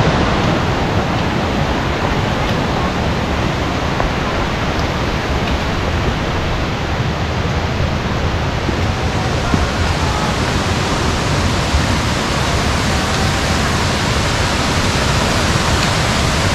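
Waterfall pouring, a loud steady rush of water that turns brighter and hissier about halfway through.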